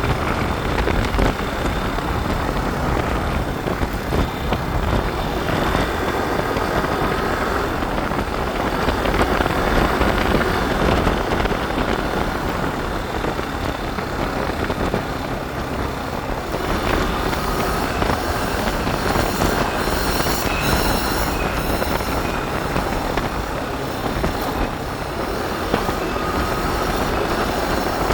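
Motorbike ride: the engine runs steadily under a constant rush of wind noise, with a brief high rippling sound about twenty seconds in.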